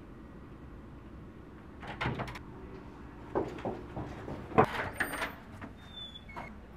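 Running footsteps and a wooden door being pushed open: a series of knocks and clatters, with one sharp knock loudest among them.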